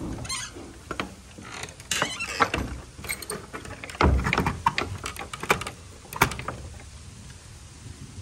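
Metal latch and hanging chain on a wooden double door clinking and rattling as a hand works them, with a series of clicks and knocks and a heavy thunk from the door about four seconds in.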